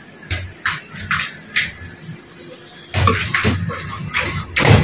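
Onions and garlic frying in ghee in an aluminium pot, sizzling, while a metal ladle scrapes and stirs them in a string of short strokes, more of them near the end.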